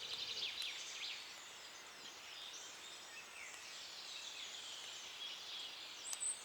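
Faint wild ambience: scattered bird chirps and calls over a soft high-pitched background hiss, with one brief sharp click about six seconds in.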